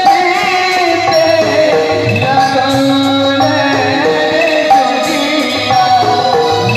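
Loud music: a melody of held, wavering notes over a steady drum beat.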